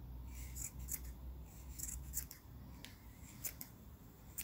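Scissors snipping through the folded loops of yarn bundled for a pompom: several crisp snips at uneven intervals, a couple of them close together near the end.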